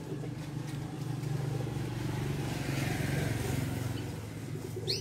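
Motor vehicle engine passing, its steady hum swelling for a couple of seconds and then fading. A brief high rising whistle comes near the end.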